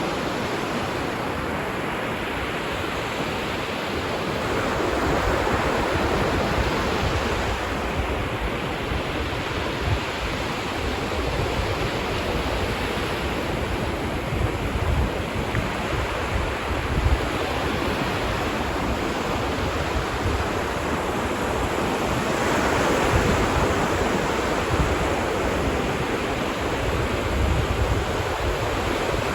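Ocean waves breaking and washing on a beach, a steady rush that swells and eases every several seconds, with some wind on the microphone.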